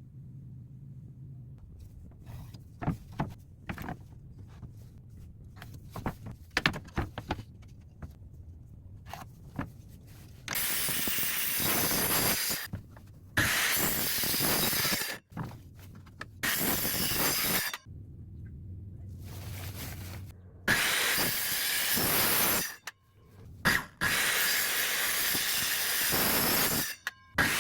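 Scattered knocks and clicks of wood being handled. Then a power tool runs in five bursts of about two to three seconds each, with short pauses between them.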